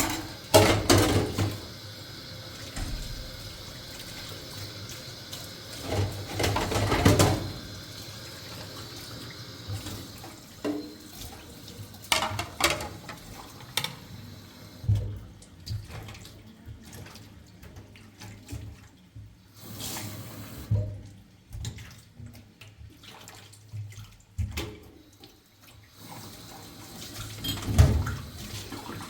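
Water running, as from a tap into a sink, with louder bursts about a second long every few seconds and scattered small knocks.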